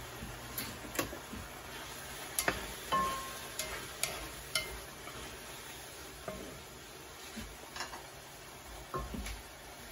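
Chopsticks and a wooden spatula stirring a shark fin squash stir-fry in a pan, knocking irregularly against the pan over a low sizzle.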